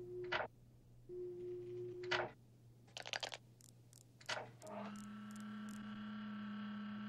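Cartoon sound effects of a jukebox record-changer mechanism: a low electrical hum under two held tones that each end in a quick upward whoosh, then a short rattle of clicks about three seconds in. From about two-thirds of the way through, a steady buzzing tone with overtones sets in, with a few clicks over it.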